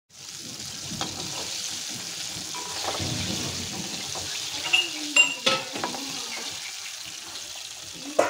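Battered chicken drumsticks sizzling steadily in hot oil in a pan. A few sharp clinks of a metal slotted spatula against the pan come around the middle, and another near the end.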